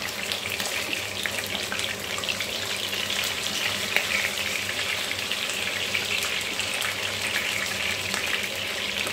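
Two whole gilthead sea bream frying in shallow oil on low heat, a steady sizzle with scattered crackles and ticks, as a wooden spatula turns them in a nonstick pan.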